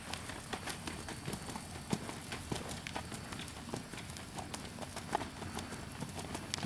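Hoofbeats of an American Saddlebred gelding moving along, a steady stream of sharp clip-clop strikes several times a second; he is shod with flat plates in front and barefoot behind.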